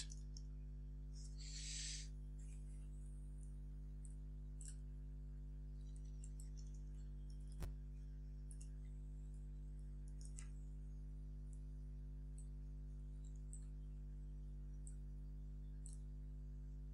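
Faint, sparse computer keyboard clicks over a steady low electrical hum, with one sharper click about two thirds of the way through.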